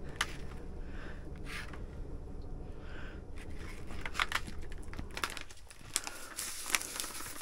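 A plastic bag crinkling as it is torn open and handled near the end, over a low steady hum with scattered light clicks earlier on.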